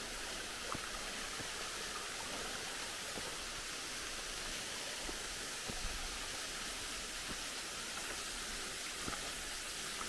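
Steady hiss of falling water from the Butakovsky waterfall, a thin mountain cascade streaming down a rock face.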